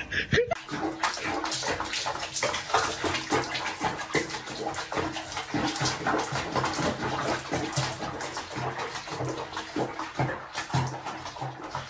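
Water splashing and sloshing in a sink basin with a wet cat sitting in it.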